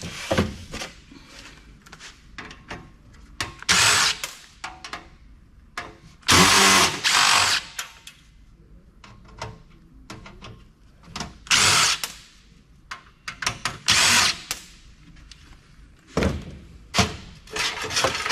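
Power drill-driver with a screwdriver bit running in four short bursts, about a second at most, as it backs out the screws holding a desktop PC's power supply. Small metal clicks and clatter from the screws and the case come between the bursts.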